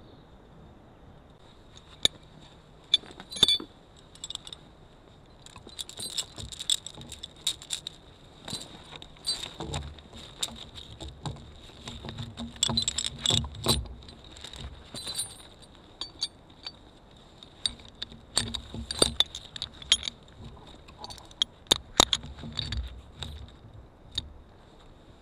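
Steel choker chain clinking and rattling in irregular sharp clinks as it is handled and wrapped around a log and hooked into a red choker hook, setting the log up to be winched.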